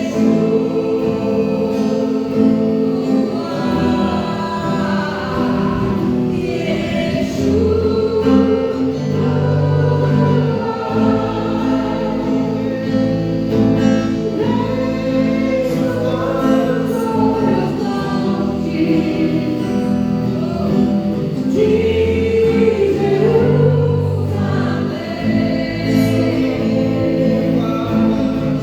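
Group singing a gospel song together with instrumental accompaniment.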